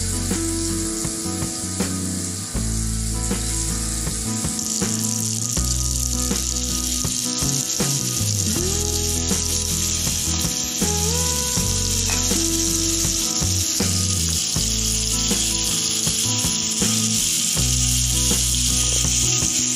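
Oil sizzling steadily as masala-marinated fish slices shallow-fry on a nonstick tawa, the sizzle growing louder about five seconds in. Background music plays throughout.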